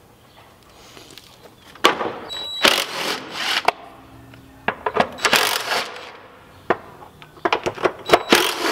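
Cordless drill/driver running in short bursts to back out the screws of a plastic factory air box, with sharp clicks and clatter of fasteners and plastic between the bursts.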